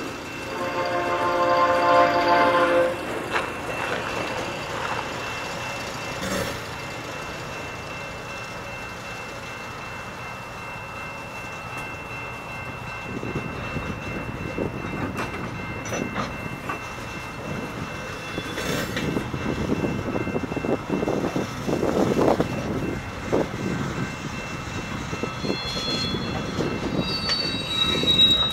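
A train horn sounds one chord for about two and a half seconds, then the freight cars of a slow-moving tie train roll past, their wheels clattering and knocking over the rail joints, with a thin high wheel squeal near the end.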